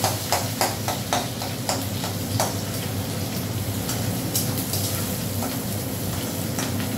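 Sliced onions sizzling in hot oil in a steel kadai while a spatula stirs them. The spatula scrapes and clinks against the pan, repeatedly in the first two and a half seconds, then only now and then.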